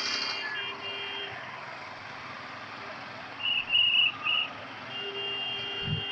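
Road traffic with vehicle horns: a steady horn sounds at the start and again for the last second, and three short, high beeps in quick succession about three and a half seconds in are the loudest sounds.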